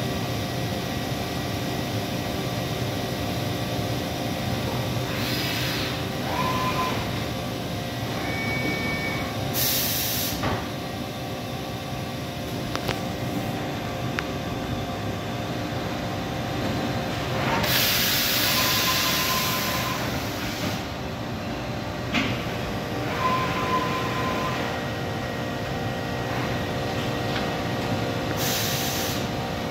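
Okuma Multus U4000 multitasking CNC lathe running, its milling head repositioning with no cutting: a steady machine hum, with four short hisses, the longest about three seconds two-thirds of the way through. A few brief steady tones sound between them.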